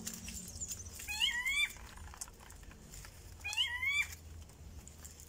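An animal's short mewing call, heard twice about two and a half seconds apart, each rising in pitch and then dropping.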